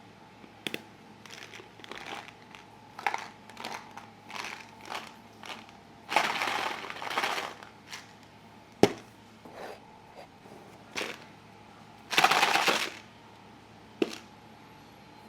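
Supplement packaging being handled and opened by hand: a string of short crinkling rustles, two longer bursts of crinkling about six and twelve seconds in, and a couple of sharp clicks.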